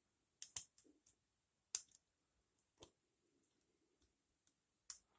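Faint, scattered metallic clicks of a lock pick working the pins of an ASSA Ruko padlock during single-pin picking, about five clicks at uneven intervals.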